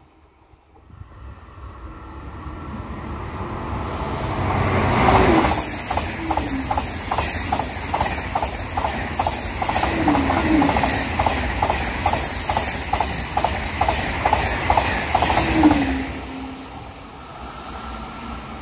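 Two coupled TGV Atlantique high-speed trainsets passing close by. The rolling noise swells for about five seconds as they approach, then holds loud with rapid, evenly spaced wheel clacks and high whining, and fades away near the end.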